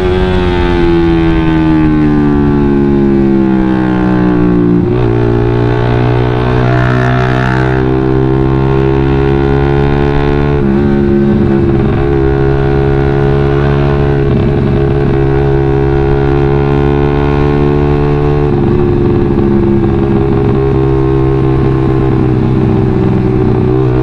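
Suzuki GSX-R150 single-cylinder engine running through a WRX GP5K1 aftermarket full-system exhaust while the bike accelerates on the road. Its pitch shifts abruptly about 5, 11 and 18 seconds in, at gear changes.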